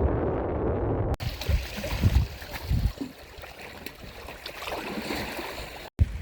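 Wind buffeting the microphone in gusts, with deep low thumps from the stronger blasts; the recording cuts abruptly twice.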